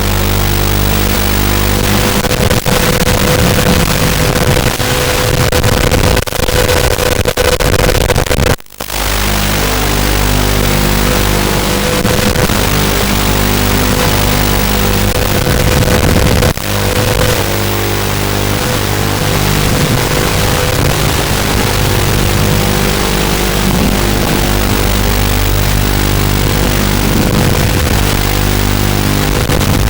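FPV racing quadcopter's motors and propellers buzzing as it flies, a steady multi-toned hum that shifts with throttle and cuts out briefly about nine seconds in.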